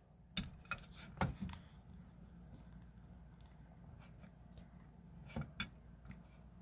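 Faint clicks and handling noise from a Kizer October folding knife being worked in the hand: a few sharp clicks in the first second and a half, then two more near the end.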